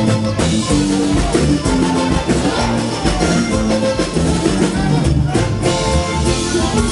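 Norteño huapango music: button accordion playing the melody over bass and drums in a lively, steady rhythm.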